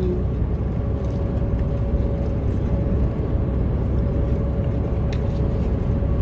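18-wheeler's diesel engine running, heard inside the cab as a steady low rumble with a constant hum. A faint click or two sounds over it.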